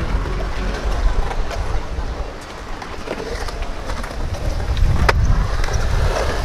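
Skateboard wheels rolling on a concrete bowl under heavy wind rumble on the microphone, with a sharp clack about five seconds in.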